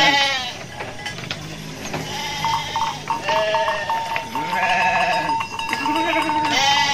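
Garut sheep bleating, several quavering calls about a second long from different animals, one after another.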